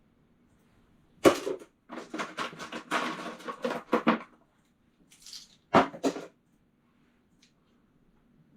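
Loose metal sockets clattering: a sharp knock about a second in, a run of rattling clinks for about two seconds, then another sharp knock a little before the six-second mark.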